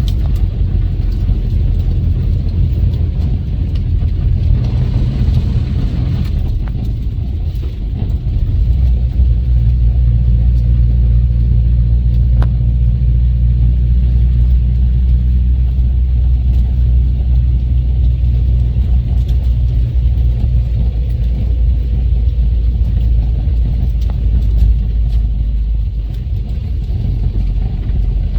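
Renault R10/R8 Automatic's rear-mounted four-cylinder engine running steadily. Its note changes about eight to nine seconds in.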